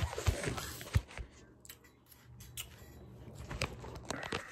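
Scattered clicks and knocks from handling the plastic sleeve of a freeze pop while trying to get it open, with a sharp knock at the start and another about a second in.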